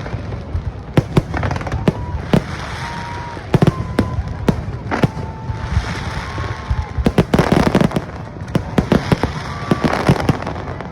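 New Year fireworks display: repeated sharp bangs of shells bursting overhead, with dense crackling volleys about two-thirds of the way in and again near the end.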